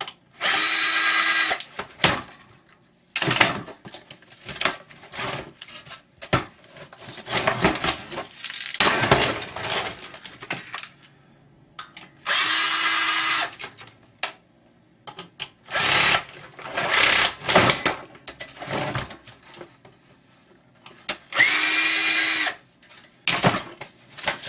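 A power drill running in three short bursts of about a second each, driving screws out of the monitor's metal and plastic parts. Between the bursts there is clattering and clinking of loose metal parts and screws being handled.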